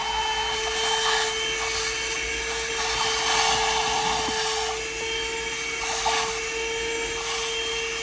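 THISWORX 12-volt handheld car vacuum with a crevice tool running steadily, a constant motor whine over the hiss of rushing air, as it sucks sand and dried powder out of a cup holder.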